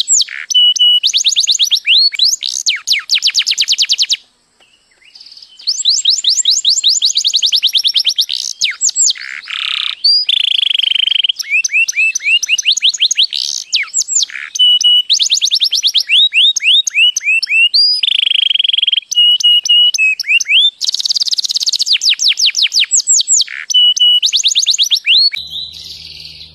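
Domestic canary singing: long rapid trills of quickly repeated sweeping notes, alternating with short steady whistled tones, with a break of about a second and a half about four seconds in.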